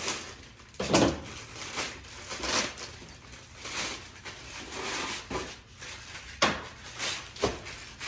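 Clear plastic wrapping rustling and crinkling in irregular bursts as it is pulled off a black tonneau cover rail, with a few sharp knocks as the rail is handled, the loudest about a second in.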